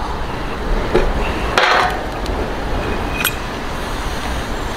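Metal knocking and clinking as a roasted turkey hanging on a steel hook is set down into a stainless steel tray and the hook is worked loose: a light knock about a second in, a louder scraping clatter just after, and a sharp ringing clink past the three-second mark. A steady low rumble runs underneath.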